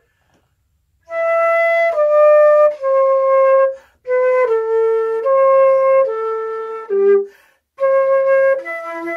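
Metal concert flute played solo: a slow phrase of held, clear notes that mostly step downward in pitch, starting about a second in and broken into three groups by short gaps.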